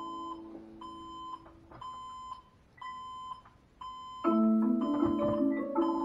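Several alarms sounding at once. An electronic alarm beeps about once a second on a single steady pitch. A marimba-like alarm melody fades out in the first couple of seconds and comes back loudly about four seconds in.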